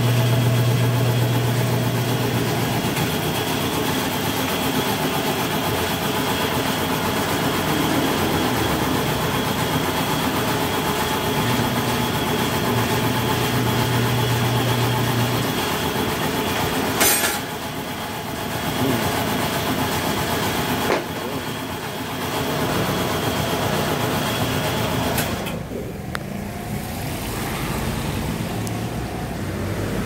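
Tire changer machine at work on a scooter tire: its electric turntable motor hums steadily for the first few seconds and again for about four seconds around the middle, over constant mechanical shop noise. A single sharp clack comes about seventeen seconds in.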